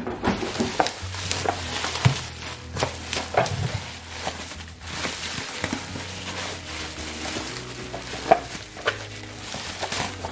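Packaging rustling and crinkling, with scattered light knocks, as a boxed button press is unpacked by hand. Soft background music plays underneath.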